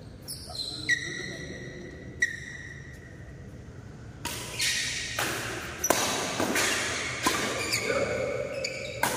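Badminton rackets striking a shuttlecock, with echo of a large hall. First come a few light hits, each with a short ringing ping from the strings. Then from about four seconds in a rally runs, with sharp hits about every half second to a second.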